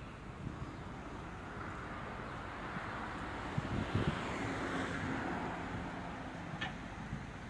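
Dump truck's diesel engine running hard to drive the hydraulic hoist as the tipper bed rises and the load of soil slides out. The sound swells a little around the middle.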